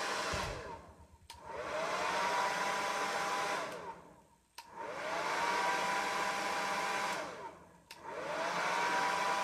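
Handheld hair dryer switched on and off repeatedly. It runs briefly and dies away, then three times clicks on, its motor whine rising and levelling off over a steady rush of air, and runs for about three seconds before shutting off again.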